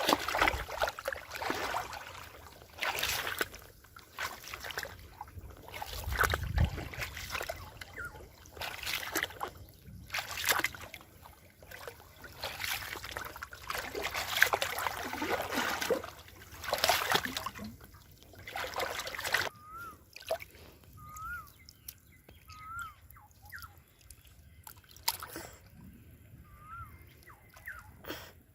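Pond water splashing and sloshing in irregular bursts, as if being stirred or waded through. Over the last third the splashing thins out and a few short, high rising-and-falling chirps are heard.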